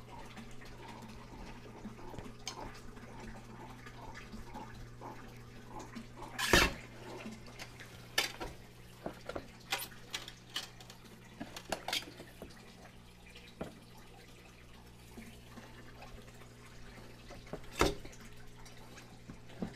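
Aquarium filter running on a 225-gallon tank, water trickling and dripping back into the tank from a filter that leaks. A steady low hum runs under scattered clunks and clicks of equipment being handled on the tank, the loudest about six and a half seconds in.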